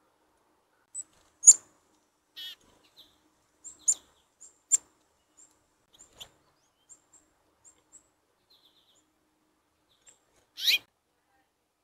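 Small songbirds calling: a scattering of short, high chips, with a few louder sharp notes in the first five seconds and one longer, louder call near the end.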